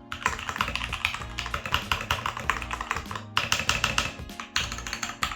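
Keychron K8 mechanical keyboard with tactile brown switches being typed on quickly, a dense run of key clacks with a brief pause a little after three seconds in.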